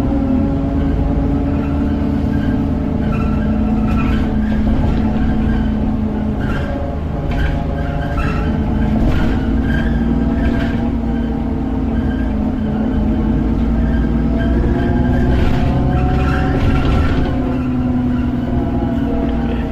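Alexander Dennis Enviro400 double-decker bus heard on board, its engine and drivetrain droning as it drives, the pitch of the drone slowly rising and falling, with scattered short rattles.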